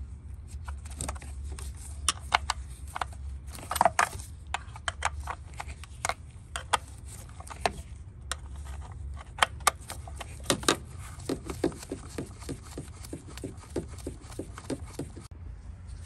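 Metal clicks and clinks of a hand wrench working 10 mm bolts loose on a wiring harness bracket, with some scraping. The clicks come irregularly, with a quicker run of them about two thirds of the way in.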